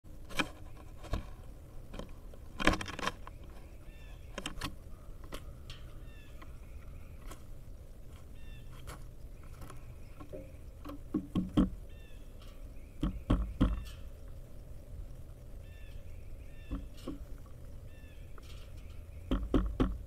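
Sharp knocks and thuds on a wooden platform feeder, coming in clusters, as a pileated woodpecker lands and pecks at the peanuts. Faint short chirps of small birds sound in the background.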